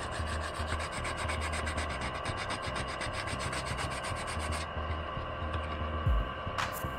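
Hand sanding the housing of a Makita 9500NB angle grinder with 180-grit wet-or-dry sandpaper: quick, even back-and-forth rubbing strokes that stop about two-thirds of the way through, followed by a couple of short knocks near the end.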